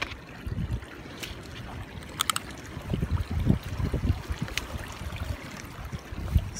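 Hiking boot footsteps on a wet, stony trail running with shallow water: irregular splashy scuffs and thuds on the rocks, with a quick cluster of sharp clicks about two seconds in.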